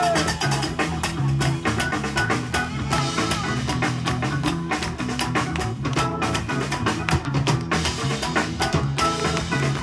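Live band playing an instrumental passage: drum kit and congas keep a steady, busy beat, with shakers and guitar over it.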